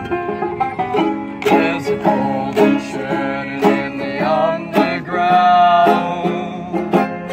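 A ukulele and a banjo playing together, strummed and picked chords. A voice sings a melody over them from about a second and a half in, with one long held note near the end.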